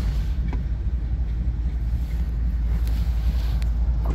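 Steady low rumble of wind buffeting the microphone, with no distinct tones or strokes.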